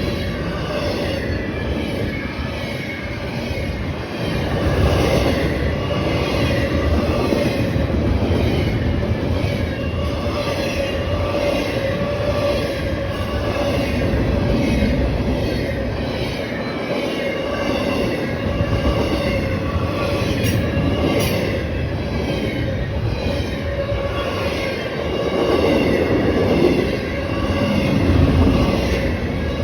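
A train passing: the steady rolling rumble of wheels on rails, with a steady whine held over it.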